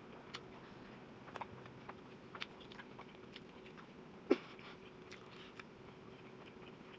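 Faint chewing and mouth sounds from a person eating a big spoonful of burrito bowl, with scattered soft clicks and one sharper click a little after four seconds in.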